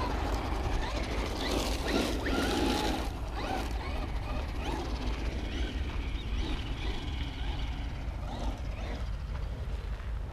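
Traxxas Rustler 4x4 RC truck running on loose dirt: its electric motor whining up and down with throttle and its tyres scrabbling, loudest about two to three seconds in, over a steady low rumble.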